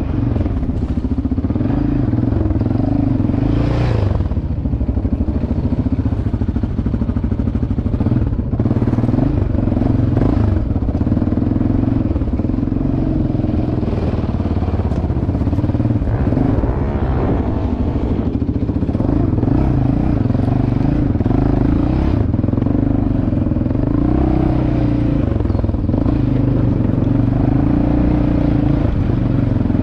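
Yamaha Raptor 700 ATV's single-cylinder four-stroke engine running steadily under way on a dirt trail, its pitch rising and falling a little with the throttle. A few knocks and clatter come from the rough ground.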